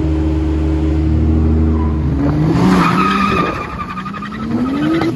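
A 2JZ-swapped Nissan 200SX S14.5 drift car: its engine idles steadily for about two seconds, then revs up with rising pitch as the car slides sideways, tyres skidding and squealing.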